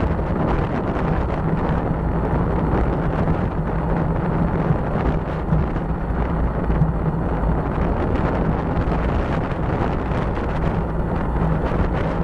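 Steady wind buffeting the microphone of a bicycle-mounted camera while riding at speed, a constant rumbling rush with no break.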